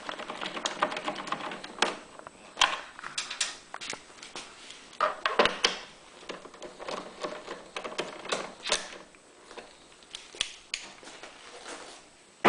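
Bolts being fitted and driven into a generator's end cover with hand tools: quick runs of small clicks broken by several sharper knocks.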